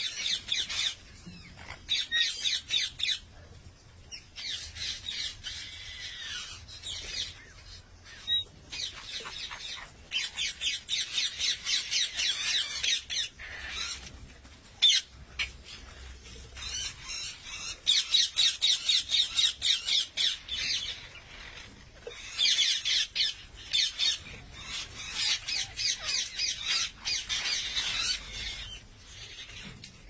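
A flock of ring-necked parakeets squawking, in runs of rapid repeated calls a few seconds long with short lulls between.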